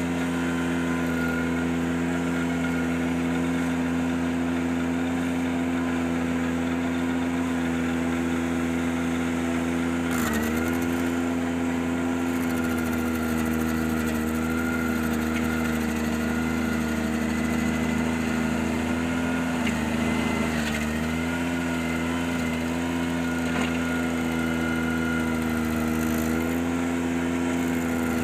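Ventrac 4520Z's engine running steadily at working speed, driving the KC180 stump grinder attachment. Its pitch sags briefly about ten seconds in and twice more around twenty seconds, the engine pulling down as the cutter takes load.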